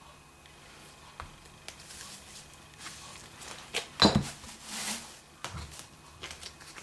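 Gloved hands handling sticky sourdough bread dough on a silicone baking mat: quiet handling noise and scattered light clicks, with one louder knock about four seconds in followed by a short rustle.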